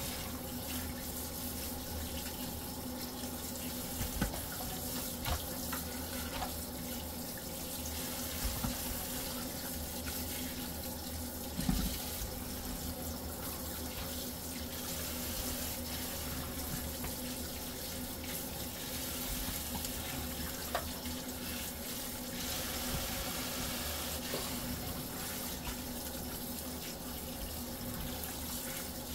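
Kitchen tap running steadily into a stainless steel sink as fish are rinsed under the stream, the water splashing over hands and fish. A few short knocks come through the running water.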